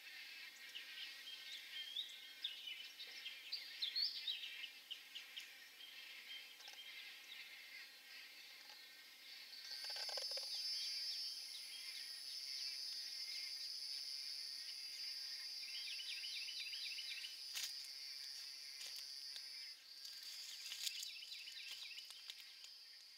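Birds giving quick series of short high chirps for the first several seconds. About ten seconds in, a steady high-pitched insect buzz starts and carries on, with scattered bird calls over it.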